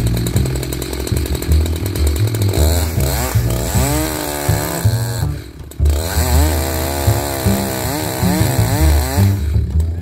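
Two-stroke chainsaw running under load as it cuts into a sweet gum trunk, its pitch wavering up and down as the bar is worked in the cut, with a brief dip about halfway through. Background music with a low bassline plays under it.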